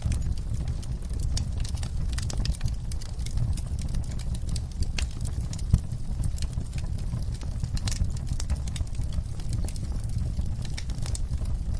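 Fireplace fire crackling: irregular sharp pops and snaps over a steady low rumble of the flames, with one louder pop about halfway through.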